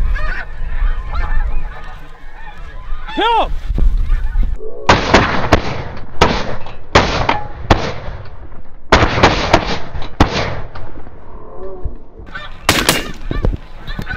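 Snow geese calling overhead, then a quick volley of about ten shotgun shots over some five seconds, with two or three more shots near the end as the geese keep calling.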